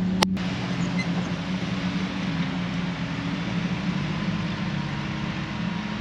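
A vehicle engine running at a steady speed, with a single sharp click about a quarter second in.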